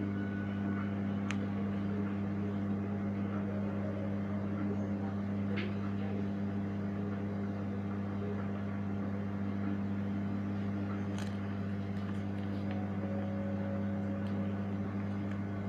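A steady low hum that does not change, with a few faint clicks.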